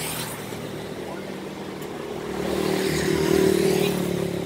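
A motor vehicle's engine running steadily, getting louder about two and a half seconds in as it draws near.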